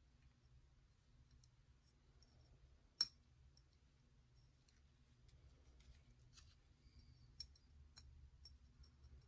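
Near silence with faint scattered clicks and handling noise from hands working tape off a steel knife blade; one sharper click about three seconds in.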